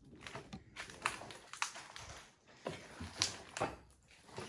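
Footsteps moving over debris on the floor: a few light crunches and clicks with soft low thumps at irregular spacing.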